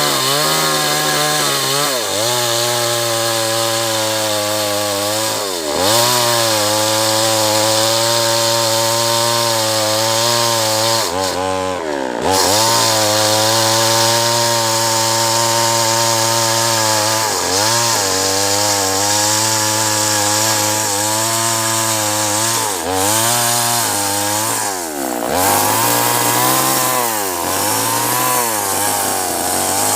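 Two-stroke chainsaw cutting acacia timber, the engine held at high revs through long stretches, its pitch sagging and climbing back up several times.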